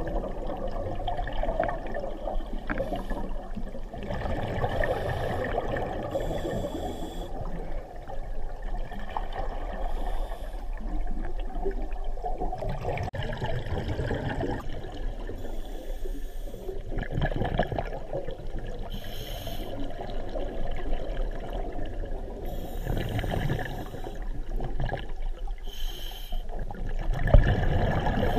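Scuba diver breathing through a regulator, recorded underwater: hissing inhalations and bubbling exhalations that come in bursts every few seconds.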